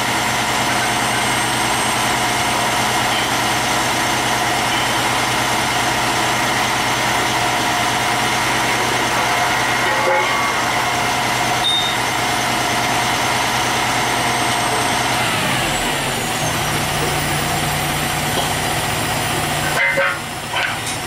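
Heavy diesel engine running steadily at a raised speed, then dropping back to a lower idle about fifteen seconds in.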